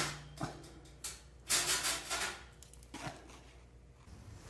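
Havahart 1079 wire-mesh cage trap, just sprung, rattling and clanking: a few short metal knocks, with a longer rattle about one and a half seconds in.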